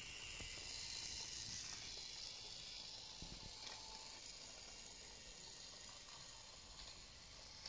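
Faint, steady hiss of room tone with a few soft ticks.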